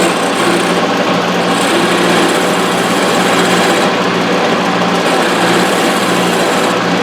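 Wood lathe running with a long-handled round turning tool cutting into the spinning wooden finial: a steady hum under a continuous rasping cut.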